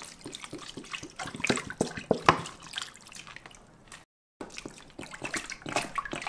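Water poured from a large plastic bottle into a stainless steel stockpot, splashing in irregular spurts onto the chicken and herbs inside. The sound cuts out completely for a moment just after four seconds in.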